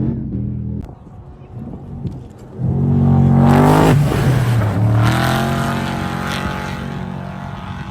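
Off-road race vehicle engines revving hard and passing close by. The engine noise falls back about a second in; from about two and a half seconds an engine climbs loudly in pitch, drops as it goes past, and another rises again just after.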